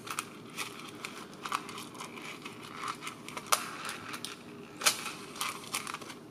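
Small plastic parts bag crinkling and rustling as tiny self-tapping screws are taken out of it, with scattered light clicks. The two sharpest clicks come about a second and a half apart, midway through.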